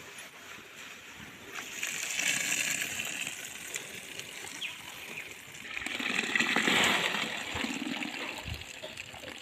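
Water running and splashing off soaked rice straw as it is drained, swelling about two seconds in and again, louder, about six seconds in.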